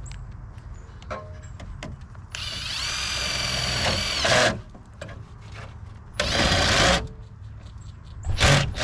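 A power drill driving self-tapping screws into sheet metal: one long run of motor whine of about two seconds, a shorter run about a second later, and a brief burst near the end.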